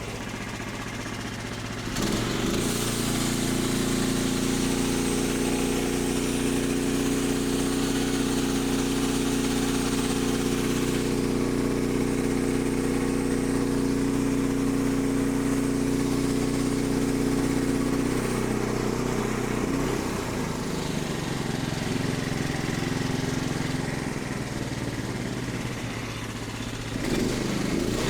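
Portable band sawmill engine running. About two seconds in it revs up and holds steady while the blade cuts through the log. It drops back toward idle about two-thirds of the way through, then revs up again just before the end.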